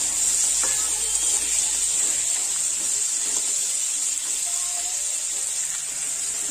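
Crab pieces sizzling steadily as they fry in oil in a wok, with a metal spatula stirring and scraping through them.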